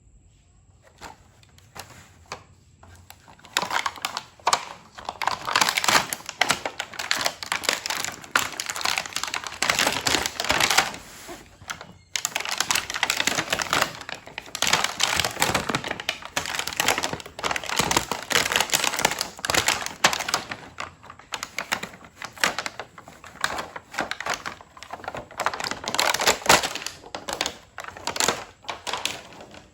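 Unboxing of a plastic toy kitchen set: dense, rapid crinkling and clicking of packaging and small plastic pieces being handled, starting a few seconds in, with a brief pause about twelve seconds in.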